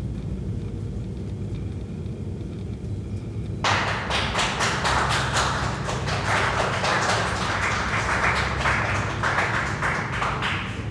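A dense, rapid run of sharp taps and knocks starts suddenly about four seconds in and stops near the end, over a steady low rumble.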